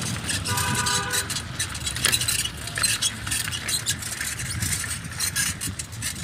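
Bicycle rattling over a rough dirt track, many quick irregular clicks and jangles over a low rumble. About half a second in, a brief horn-like tone sounds for under a second.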